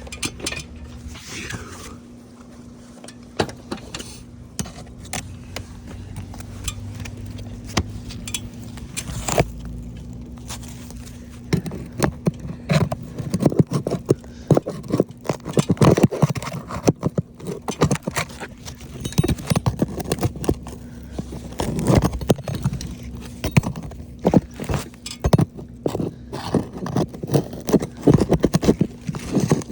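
Roof shingles being worked loose for repair: scraping and a run of sharp knocks and clicks, sparse at first and getting dense about twelve seconds in, over a faint steady hum.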